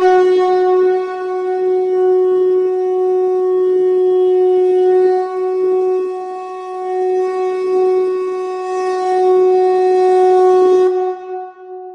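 A conch shell (shankha) blown in one long, steady note with a breathy edge. It wavers a little in loudness and stops about eleven seconds in.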